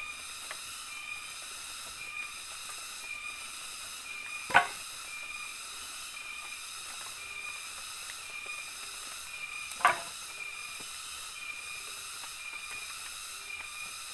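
Steady high drone of forest insects, pulsing a little faster than once a second. Two sharp knocks of wood are heard, about four and ten seconds in, as pieces of split wood are handled for the bed frame.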